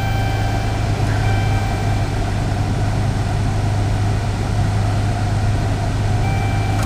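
Dodge Charger engine idling steadily just after being restarted, a continuous low hum.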